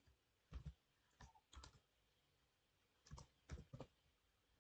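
Faint computer keyboard typing: a few quick keystrokes at a time in three short bursts, with pauses between.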